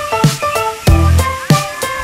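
Background music with a steady beat: drum hits over held pitched notes and bass.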